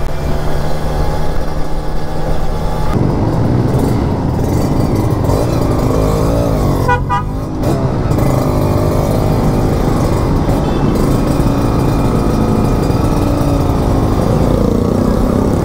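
Sport motorcycle engine running through traffic from the rider's seat, its revs rising and falling with the throttle, with passing traffic around it. A brief higher-pitched sound cuts in about seven seconds in.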